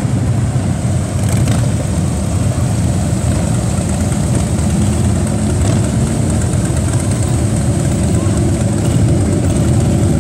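Vehicle engine running steadily, with voices in the background.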